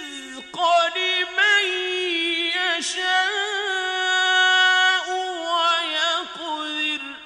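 A male reciter chanting the Quran in the ornamented mujawwad style: long melodic phrases held on a high pitch, with rapid wavering ornaments and a few short breaks for breath. The voice stops near the end, leaving a fading echo.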